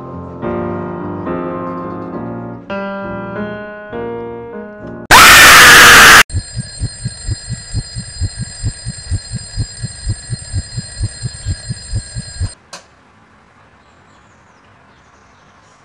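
Piano music, cut off by a sudden very loud noise burst lasting about a second. Then an alarm rings, a steady high tone pulsing about four times a second for some six seconds, and stops abruptly with a click.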